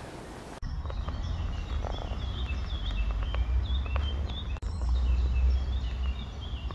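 Woodland birds chirping, many short repeated calls, over a steady low rumble. The sound drops out for an instant about half a second in and again near the middle.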